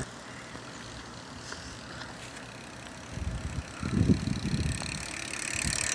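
Quiet, steady outdoor background noise, with a few low rumbles a little past halfway.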